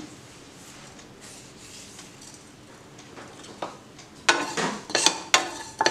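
Seeds dry-roasting quietly in a nonstick frying pan. From about four seconds in there is a quick run of knocks and scrapes as a utensil stirs the fennel, cumin and mustard seeds against the pan.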